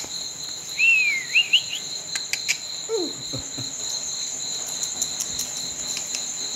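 Crickets chirping steadily in a continuous high drone. About a second in comes a short high whine that rises and falls, followed by a few sharp clicks and a brief low falling sound.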